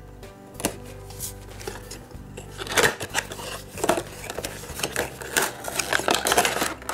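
A cardboard booster box being opened by hand and the plastic-packaged miniatures inside handled: a run of sharp clicks, crinkles and rattles that grows busier about two and a half seconds in.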